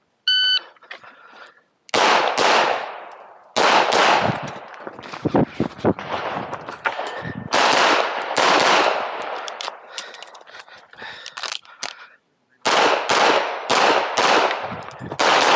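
Shot timer beeps once, then a CZ Accu-Shadow 2 pistol fires rapid strings of shots, with a brief break about twelve seconds in before the shooting resumes.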